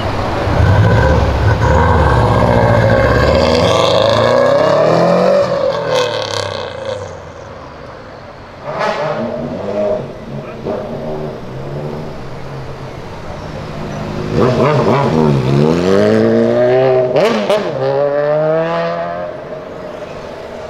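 Blob-eye Subaru Impreza's turbocharged flat-four revving hard as it pulls away, deep and loud, its pitch climbing over the first five seconds. After a quieter stretch, a car engine revs up again about fourteen seconds in, its pitch dipping and rising for several seconds.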